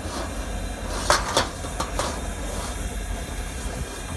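100,000 BTU high-pressure propane wok burner running with a steady rushing noise and low rumble under a carbon steel wok of canola oil that is smoking close to its flash point. A few sharp metal clicks come about a second in and again near two seconds.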